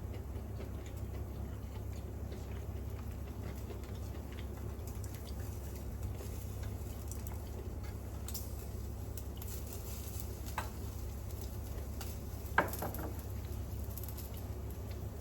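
Pork grilling on an electric shichirin, sizzling with faint scattered crackles over the steady hum of a kitchen range hood fan. A small click comes about ten and a half seconds in and a sharp clink about two seconds later.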